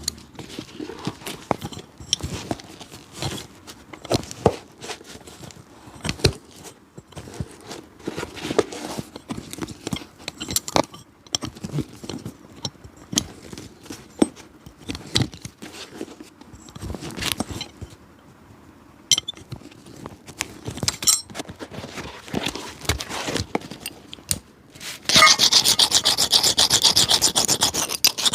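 Hand work on an old shoe: irregular rubbing and scraping strokes with small clicks. Near the end this turns into loud, rapid back-and-forth rubbing strokes.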